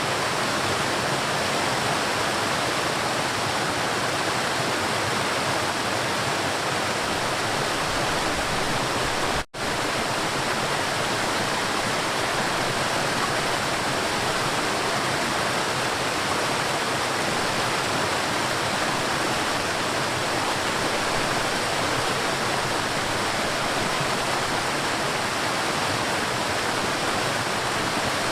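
River water rushing steadily as an even, unbroken wash of noise. It cuts out for an instant about nine and a half seconds in.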